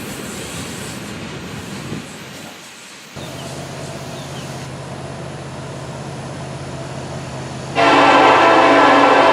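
Diesel freight train rumbling past, then a steady low diesel locomotive drone, and about eight seconds in a loud, sustained locomotive air horn sounding a chord of several notes.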